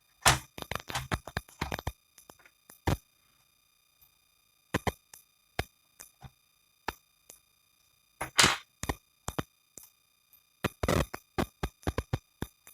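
Irregular clicks, taps and knocks of hands working on an opened laptop's plastic case and parts, in quick clusters with a couple of short scraping rubs, over a faint steady high-pitched electronic whine.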